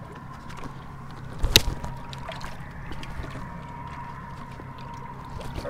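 Lake water sloshing against shoreline rocks under a steady low hum, with one sharp splash about a second and a half in as the hooked largemouth bass is pulled out of the shallows.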